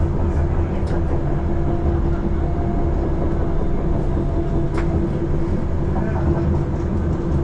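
Utsunomiya Light Line tram heard from inside the car while running: a steady low rumble from the wheels on the rails with a constant hum over it, and a couple of light sharp clicks, about one second in and near the five-second mark.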